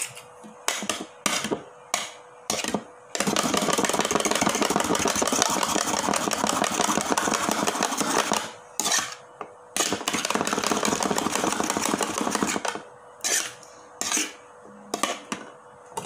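A metal spoon beating two raw eggs in a bowl: fast, even clinking against the bowl for about ten seconds. A few single knocks come before and after the beating.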